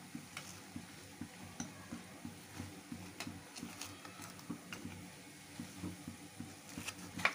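A spoon scraping and clicking as garlic paste is spooned from a small bowl onto raw chicken pieces in a plastic bowl: faint scattered clicks over a low steady hum, with a sharper click near the end.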